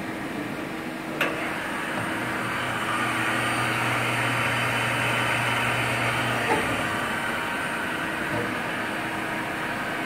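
Okuma LR-15M CNC lathe running with a steady motor hum. About two seconds in, a spindle spins up and runs at a steady speed with a low hum and hiss, then stops about six and a half seconds in. A sharp click comes about a second in, and another as the spindle stops.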